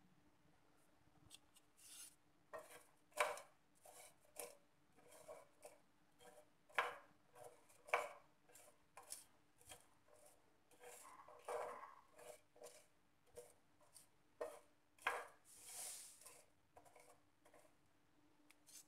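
Wooden spatula stirring whole spices (coriander, cumin and fennel seeds) around a dry flat iron pan, dry-roasting them: faint, irregular taps and short scrapes of wood on metal, with a few longer scrapes.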